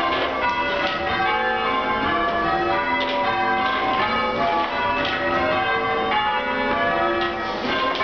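A ring of six church bells, tenor 11 cwt in G, being change rung with ropes: the bells strike one after another in a steady, unbroken rhythm, their ringing tones overlapping.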